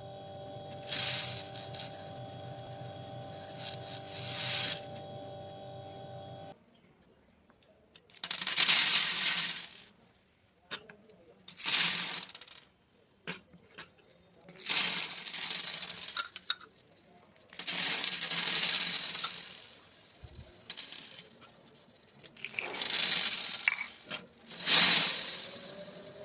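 Small beads poured in a series of short pours, each one a rattling patter lasting one to two seconds, with pauses between. A steady hum sits under the first six seconds, with two pours over it.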